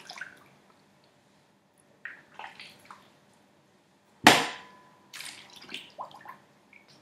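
Large raw octopus being handled and put into a pot of water: wet squelches and splashes, with a loud knock about four seconds in that rings on briefly, then more clattering.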